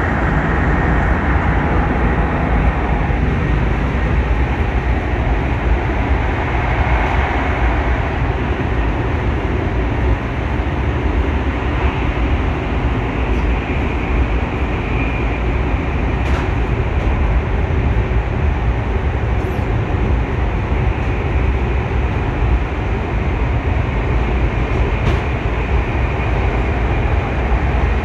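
Shinkansen bullet train running, heard from inside the passenger car: a steady deep rumble with a few faint clicks.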